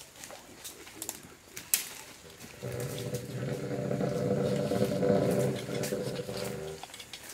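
Asian elephant rumbling: one low, rough rumble of about four seconds that swells and then fades, starting a little under three seconds in, after faint clicks and rustles of handling.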